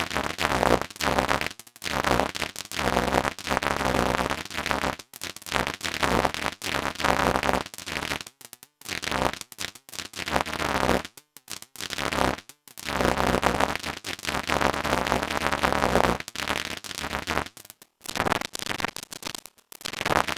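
Eurorack modular synthesizer patch (Make Noise XPO oscillator gated through a QMMG) doing pulsar-style microsound synthesis. It plays irregular bursts of crackling, buzzing grain trains separated by short silences, with pitch and timbre wandering at random.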